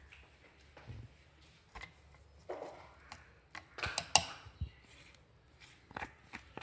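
Spoon scraping ground paste off a plastic mixer-grinder lid and into a stainless steel jar: scattered scrapes and light metal clicks, the loudest cluster about four seconds in.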